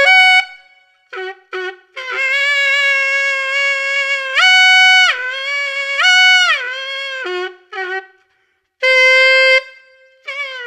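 Saxophone played on an Eb palm-key fingering with the pitch bent: a long held note that jumps up and back down twice, broken up by short lower notes and another held note, with a wavering, sliding note near the end.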